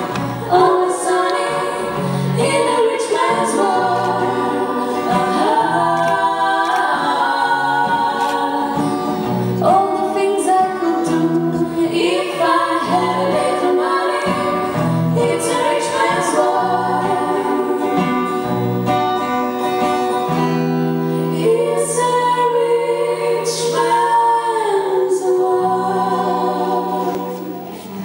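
A live song: voices singing a melody with acoustic guitar accompaniment and a steady pattern of low notes underneath.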